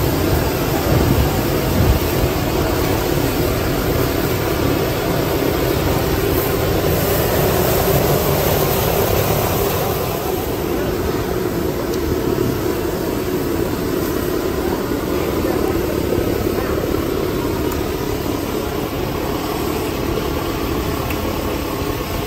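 Steady rushing roar of a busy charcoal grill with chicken grilling in wire baskets over the coals, with voices in the background.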